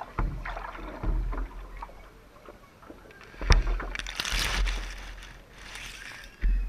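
Water lapping and splashing against a paddleboard as it comes in to the bank, with dull bumps and a sharp knock about three and a half seconds in, then grass rustling and brushing over the board-mounted camera.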